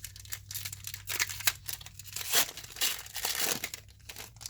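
A Disney Lorcana booster pack's foil wrapper being torn open and crinkled by hand: a run of crackling rustles that gets loudest about two seconds in and dies away near the end.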